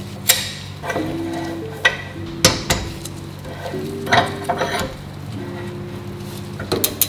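Scattered sharp metallic clinks and knocks, about half a dozen, as a bicycle rear wheel with its cassette is handled and set into a steel bench vise, over soft background music.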